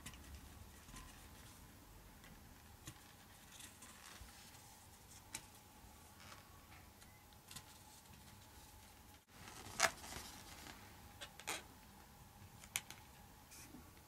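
A cat pawing at and biting a red latex modelling balloon twisted into a heart: faint, scattered taps and rubs of claws and teeth on the rubber. The loudest is a short rub about ten seconds in, with a few smaller ones after it.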